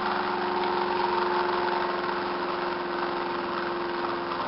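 Home-built four-pole, eight-transistor pulse motor running steadily, its spinning rotor and pulsed coils giving a hum of several held tones over a hiss. It is running under the added load of its generator coil, which is charging a small battery.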